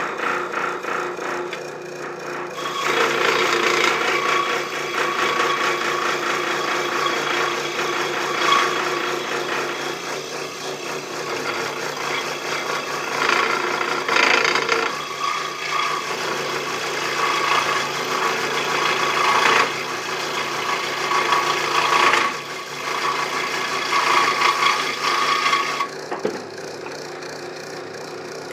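Craftsman 16-inch direct-drive scroll saw running, its reciprocating blade cutting through wood with a rapid rasping chatter from about three seconds in. Near the end the cutting stops and the saw runs on alone with a steady hum.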